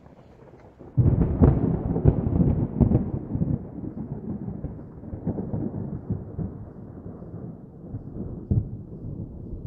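Thunder-like rumble sound effect for a logo sting. It breaks in suddenly about a second in, crackles and rolls low, and slowly dies away, with one more rumble near the end.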